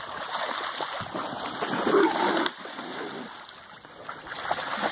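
Dogs splashing as they wade and scramble through shallow water, in uneven splashes that are loudest about halfway through.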